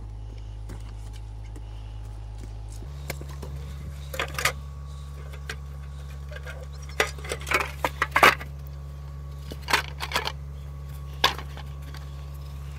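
Scattered metallic clanks and knocks from handling the rusted frame and parts of an abandoned mini chopper motorcycle, in irregular clusters with the loudest around the middle, over a steady low hum.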